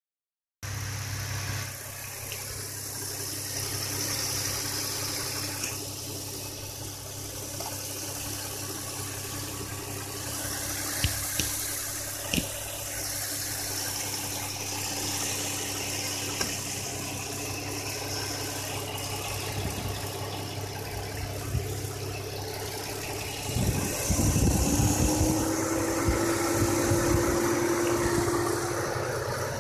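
Nissan Fuga 350GT's 3.5-litre VQ35DE V6 idling steadily with the bonnet open, with a few light clicks about halfway through. About four-fifths of the way through the sound grows louder and a steady whine joins in.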